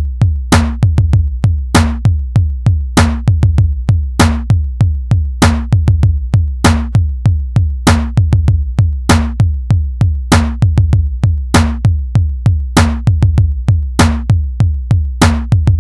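Electronic instrumental music: a programmed drum beat with rapid low kick-drum hits, a sharp snare-like hit about every 1.2 seconds, and a steady deep bass drone underneath.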